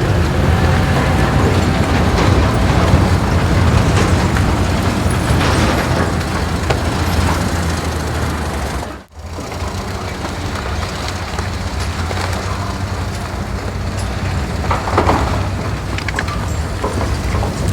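A steady, loud engine-like rumble of a large vehicle, which cuts out abruptly for a moment about nine seconds in and then resumes.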